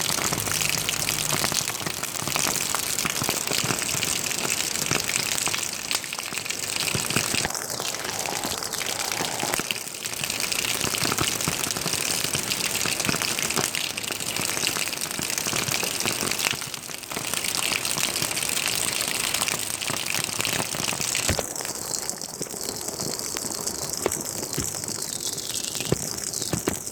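Water falling or running steadily, a continuous hiss dotted with many small splashes and drips.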